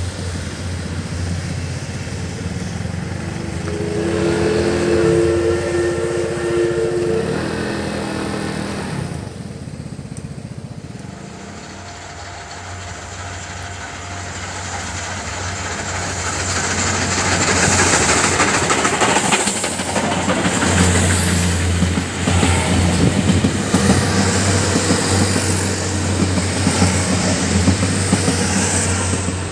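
A train hauled by the DT668 steam locomotive running on the line, with wheel and rail noise. A steady two-note whistle sounds for about three seconds around four seconds in. The noise eases off, then grows louder from about two-thirds of the way in.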